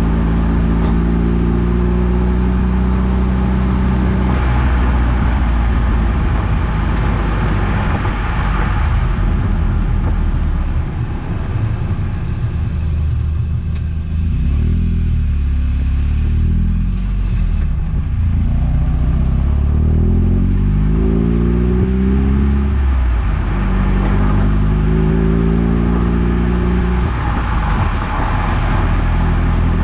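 Eunos Roadster (Mazda MX-5) four-cylinder engine running while the car is driven, its pitch holding steady and then rising several times as it accelerates through the gears, over a constant road rumble.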